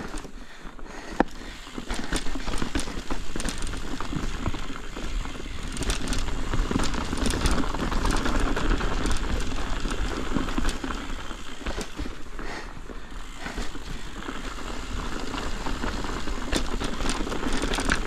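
Ibis Ripmo mountain bike riding down a chunky, loose-rock trail: tyres crunching over rock, with many sharp clattering knocks from the bike. It gets louder about two seconds in.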